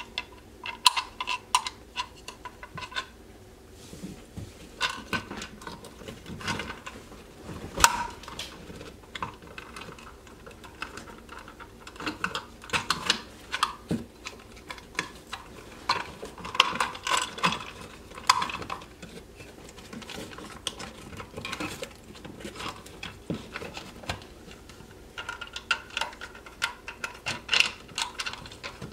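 Irregular clicks, taps and light clattering of a plastic electrical box being handled and worked into a wall opening, in scattered clusters with short pauses between them.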